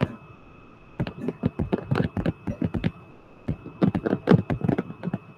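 Stylus tapping and scraping on a tablet screen during handwriting: two runs of quick light clicks with a short pause between.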